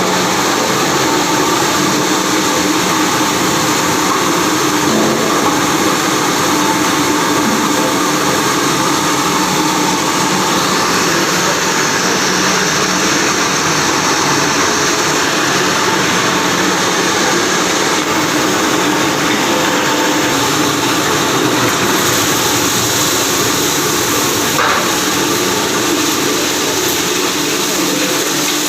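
Industrial washing machine for plastic scrap running continuously: an even, loud mechanical motor noise with a constant tone in it.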